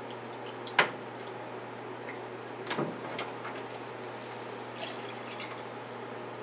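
Cup of water emptied into a cooking pot of rice, faint splashing and dripping, with a few sharp knocks of the cup and containers against the stove, the loudest about a second in and another near three seconds. A steady low hiss and hum lies underneath.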